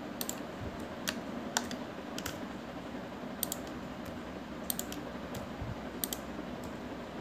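Computer keyboard keys being pressed one at a time, as Blender shortcuts, about a dozen sharp clicks scattered irregularly, some in quick pairs, over a steady low hiss.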